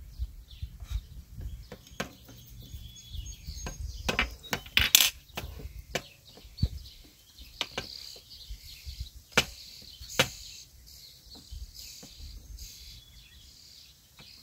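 Parts of a cordless garden tiller clicking and knocking together as they are handled and fitted during assembly. The clatters are irregular, with the loudest about five seconds in and two more sharp clicks near the ten-second mark.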